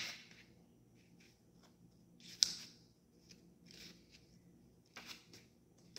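Faint handling noises: a sharp click at the start, another a little over two seconds in, a few smaller clicks near the end, and short light rustles between them.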